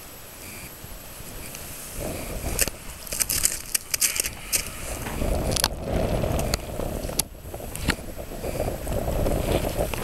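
Crampons crunching and scraping on glacier ice and hard snow as a person walks, with irregular sharp clicks over a low rumble.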